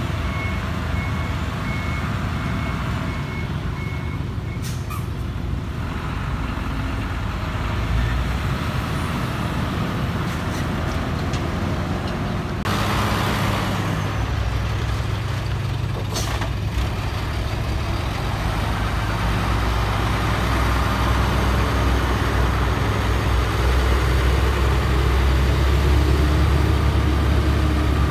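Ten-wheel dump truck diesel engines running, with a reversing beeper beeping steadily for the first few seconds. A few short air-brake hisses break in partway through, and the engine rumble swells louder near the end as a truck comes close.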